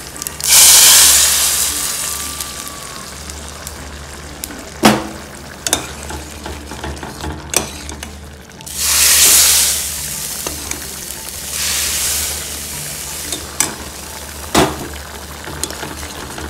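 Hot tempering of mustard seeds, urad dal, garlic and curry leaves in oil is poured from a ladle into a steel pot of chana dal kootu, and it sizzles loudly for about two seconds. Two shorter bursts of sizzling follow as the tempering is stirred in, along with a few sharp clinks of a metal spoon against the pot.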